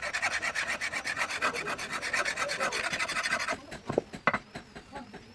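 A hand file rasping on a steel knife blade in fast, even strokes, about ten a second, which stop after about three and a half seconds. A few scattered knocks and clicks follow.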